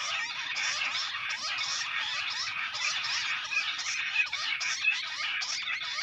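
Bush quail calling: a dense, unbroken chatter of rapid, overlapping high chirps and trills.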